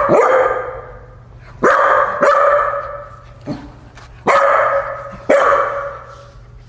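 A dog barking repeatedly, about six loud barks at irregular intervals with short gaps between them.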